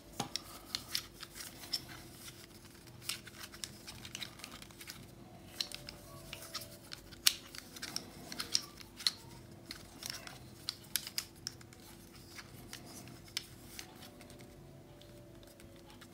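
Plastic clicks and clacks of a pyraminx-type twisty puzzle being turned and worked by hand, coming irregularly, with one sharper click about seven seconds in.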